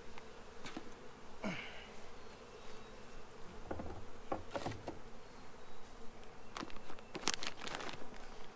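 Carniolan honey bees buzzing steadily over an opened hive, with a few scattered clicks and knocks of hive equipment being handled.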